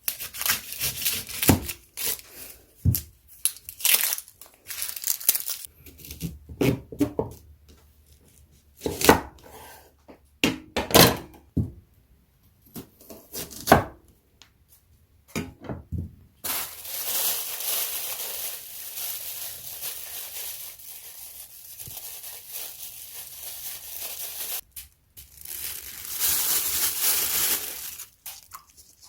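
Wood-burning stove being fed and tended: a run of crackling, crumpling and tearing sounds with wooden knocks, then a steady hiss from about halfway that dips briefly and swells again near the end.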